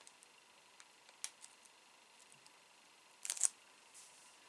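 Quiet room with a few faint, sharp clicks: one about a second in, and a short, louder cluster of clicks about three seconds in.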